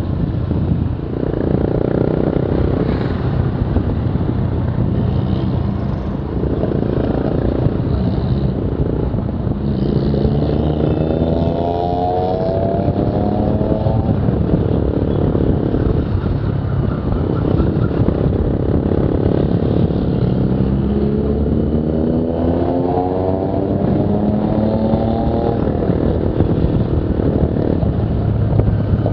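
Modified Maruti Suzuki Esteem with a loud aftermarket exhaust under way, its engine note rising steadily through the revs twice: about ten seconds in and again past twenty seconds.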